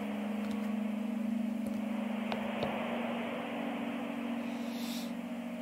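Soft ambient relaxation soundscape: a steady low drone held under an even hiss, with a brief soft swish near the end.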